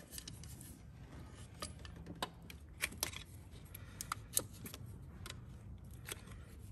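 Scattered light clicks and taps from a small screwdriver prying at the plastic electrical connector on a throttle body, working loose a connector whose release clip is broken.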